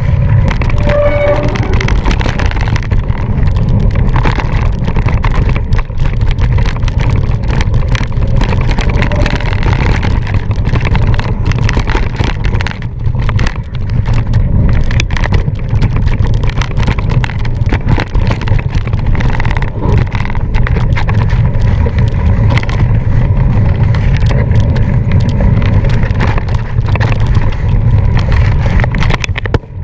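Wind rushing over the microphone of a camera carried on a mountain bike during a race, with the bike clattering over rough ground in frequent sharp knocks.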